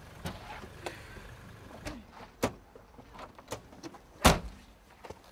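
A car door being opened as a passenger climbs out of a sedan: scattered clicks and knocks from the latch and door, with a heavier thunk about four seconds in.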